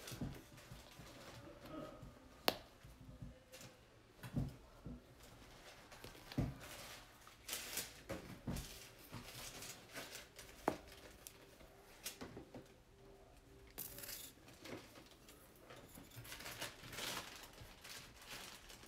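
Quiet rustling with scattered light clicks and taps of hands handling bead-making materials: fabric strips, a glue bottle and a drinking straw. A faint steady hum runs through the middle.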